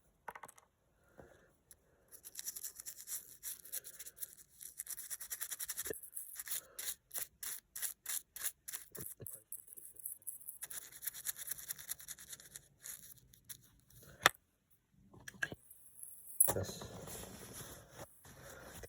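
A dirty coin being scrubbed with a brush: quick back-and-forth strokes that come in runs with short pauses, and a sharp click about two-thirds of the way through.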